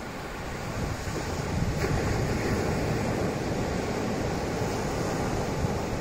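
Small ocean surf breaking and washing up a sandy beach, a steady rush of water that swells about a second in.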